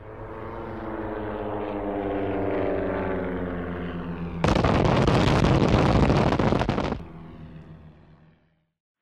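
A propeller aircraft's engine droning as it passes, its pitch slowly falling, then a sudden loud explosion lasting about two and a half seconds that dies away.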